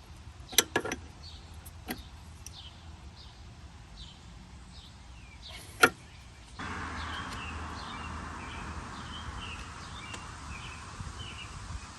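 A few sharp clinks and knocks of hand work on the truck's brake lines, the loudest a single knock about six seconds in. Small birds chirp over it. About six and a half seconds in, a steady hiss starts suddenly and runs on.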